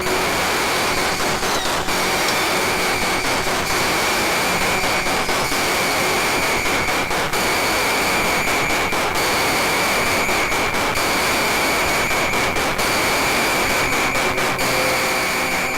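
Loud, steady static-like hiss with a thin high-pitched tone running through it and scattered crackles.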